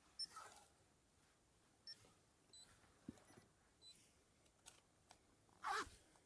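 Faint short electronic beeps, about five at two alternating pitches, from the echo sounder's buttons being pressed as its depth range is changed. A few soft clicks and a brief rustle near the end.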